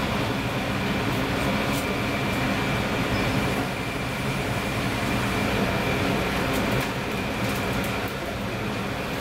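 A pot of dark broth with fish pieces at a rolling boil on a gas burner: a steady bubbling rumble, with a faint steady high whine running through it.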